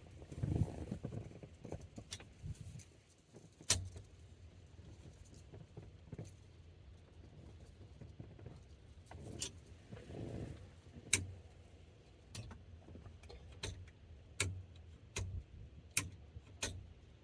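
Small metal clicks and handling noises from hand tightening of the turn signal lever's screw on a steering column: about a dozen sharp separate clicks at uneven spacing, most of them in the second half, over a faint low hum.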